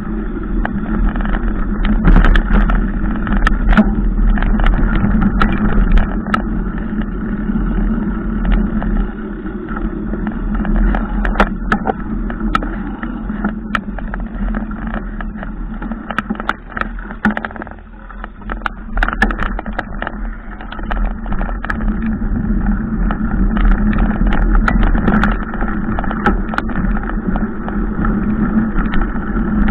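Small motorcycle engine running at low speed over a rough dirt track, easing off briefly a little past halfway, with frequent knocks and rattles from the bumps.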